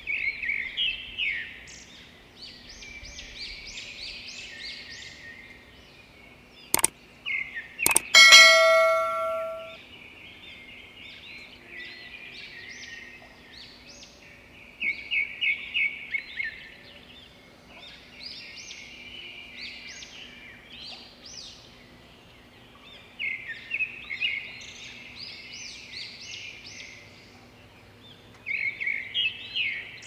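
A pair of brahminy starlings (brahminy mynas) singing in repeated bursts of short, quick phrases, strongest at the start, about fifteen seconds in and near the end. About seven and eight seconds in come two sharp clicks, then the loudest sound: a metallic clang that rings on for about a second.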